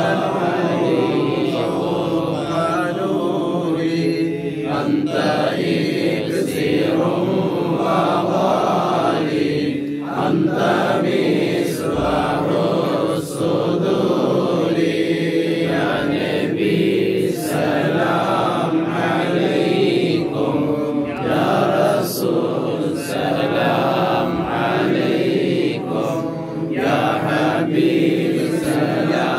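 A group of men chanting mawlid verses together in continuous recitation.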